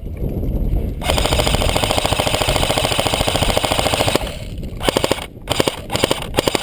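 Airsoft M60 electric gun (AEG) firing on full auto: the motor-driven mechanism cycles as rapid, even clicks. A long burst starts about a second in and lasts about three seconds, followed by a few short bursts near the end.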